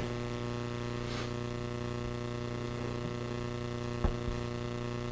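Steady electrical mains hum, with one short knock about four seconds in.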